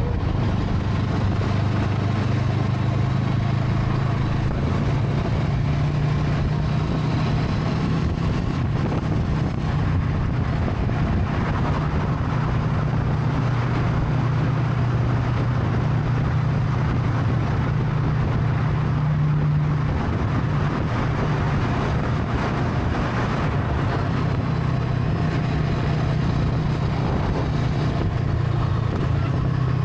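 Brixton Crossfire 500's parallel-twin engine running steadily at an even pitch, with no rise or fall.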